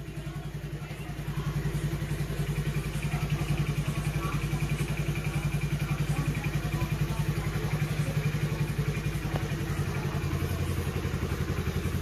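A 2008 TVS Scooty Pep+ scooter's small single-cylinder four-stroke engine idling steadily just after starting up, its first run after standing for a long time. The idle picks up slightly about a second in, then holds even.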